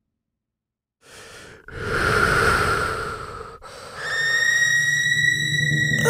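Silence for about a second, then breath-like rushing noise in two swells, like heavy breathing. Nearly four seconds in, a steady high-pitched tone with overtones comes in and holds.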